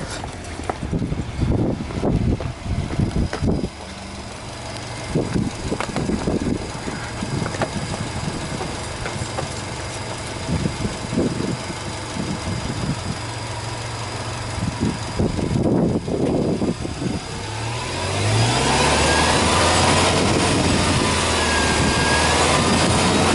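Subaru Legacy B4 2.0GT's turbocharged 2.0-litre flat-four engine idling, with knocks and rustles of handling over it for the first part. From about 18 seconds in it is louder and steadier.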